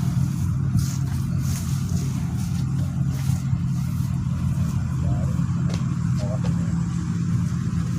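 Engine-driven rice thresher running steadily, a constant low drone with no change in speed.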